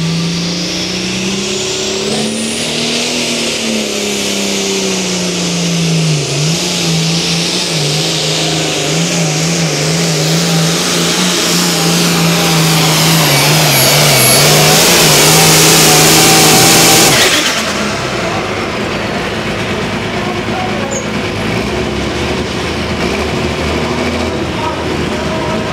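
Pro Farm class pulling tractor's turbocharged diesel engine at full throttle under load, pulling the sled. The engine pitch climbs, then wavers up and down, under a loud high turbo whistle and hiss. About 17 seconds in the sound drops suddenly to a quieter engine running.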